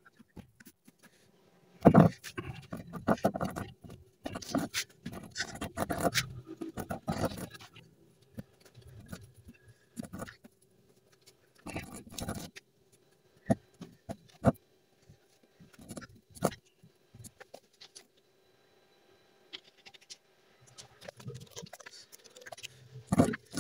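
Rustling and scratching of loose chopped glass-fibre strands as they are spread and pressed into a mold by hand. It comes in irregular bursts, with scattered light knocks in between.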